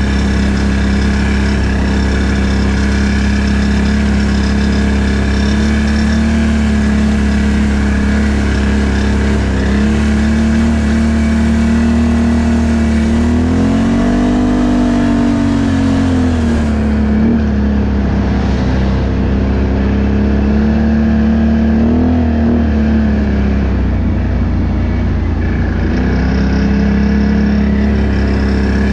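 ATV engine running steadily under way. Its pitch rises and falls back about halfway through as the throttle is opened and eased off, with a smaller rise a little later.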